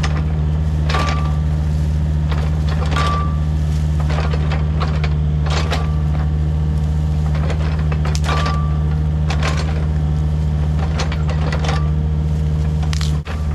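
Mini excavator's diesel engine running steadily under load, with irregular metallic knocks and clanks and brief squeaks as a ripper tooth tears through ground and roots.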